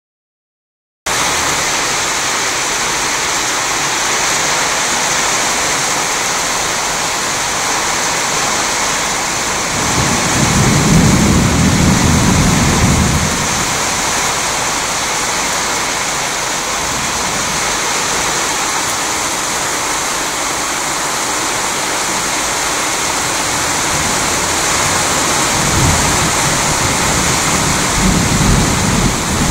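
Heavy rain falling steadily, starting about a second in. A low rumble of thunder swells about ten seconds in and lasts a few seconds, and more thunder rumbles near the end.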